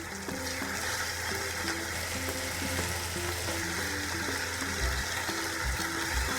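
Food frying in a pan, a steady sizzling hiss, with soft background music underneath.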